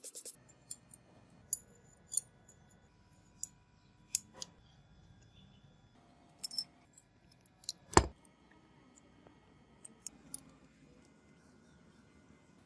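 Revolver parts being handled: scattered small metallic clicks and taps at irregular intervals, with one sharper knock about eight seconds in.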